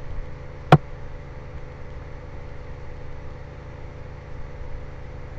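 A single sharp mouse-button click about three-quarters of a second in, over a steady low electrical hum from the recording setup.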